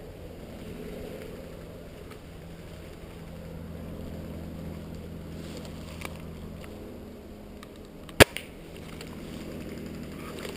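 A single sharp crack of an airsoft sniper rifle firing, about eight seconds in, followed a moment later by a fainter click, over a steady low hum.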